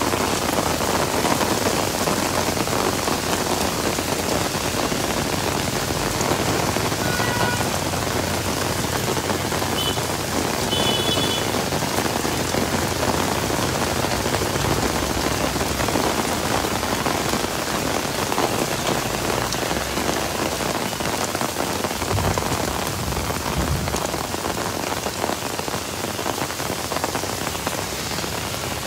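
Heavy rain pattering steadily on an umbrella overhead and on the wet street, a dense even hiss that eases slightly near the end.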